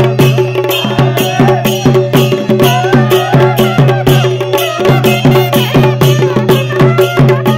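Kumaoni folk band music: a bagpipe (masakbeen) melody over its steady drones, driven by a fast, even drum beat of about four strokes a second, typical of a chholiya wedding band.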